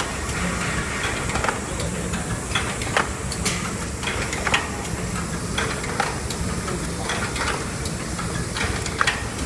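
Cellophane overwrapping machine running, a steady mechanical hum and hiss with a regular clack of its folding and pushing mechanism about twice a second.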